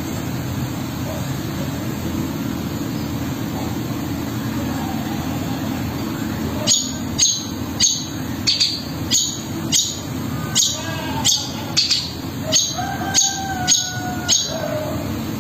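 Long-tailed shrike (cendet) giving a fast series of short, sharp, downward-sweeping calls, about two a second, starting about seven seconds in, over a steady low rumble.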